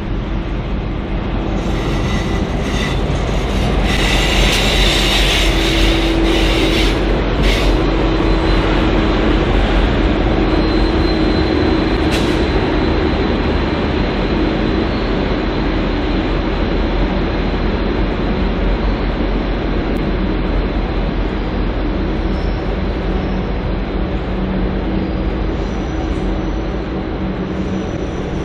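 V/Line N class diesel locomotive running into the station hauling passenger carriages: a steady diesel engine drone with wheel and rail noise. A burst of high-pitched hiss comes about four to seven seconds in, and a thin squeal briefly around twelve seconds.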